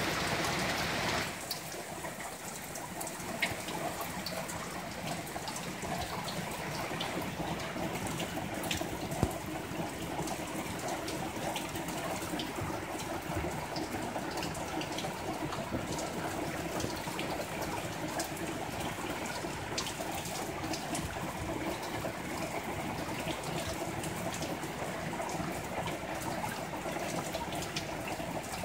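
Heavy rain falling steadily on a wooden deck, a steady hiss with scattered sharp taps of drops and two louder taps early on. The hiss is a little louder for about the first second.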